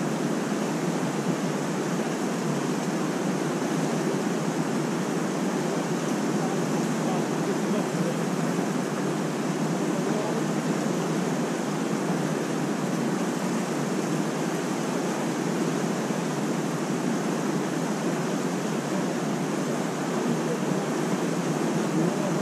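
River water rushing steadily, an even, unbroken noise.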